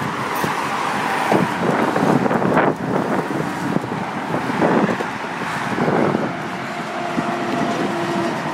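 Highway traffic passing below: a continuous roar of tyres and engines, with several vehicles swelling loud and fading as they go by, the biggest about two and a half seconds in.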